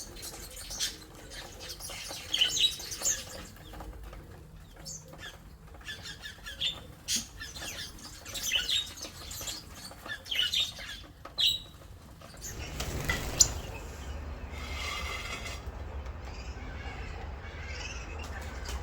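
Small birds chirping: short, high, scattered calls, some in quick runs. About twelve seconds in the chirps stop and a low steady rumble takes over.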